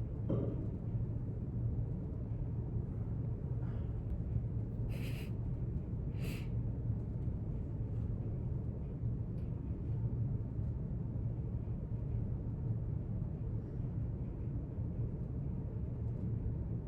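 Library room tone: a steady low hum or rumble, with two short rustles about five and six seconds in.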